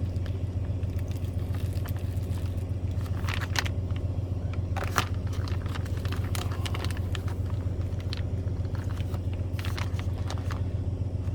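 Water being poured into an MRE flameless ration heater bag, with crinkling of the plastic bag and scattered crackles and clicks, over a steady low hum.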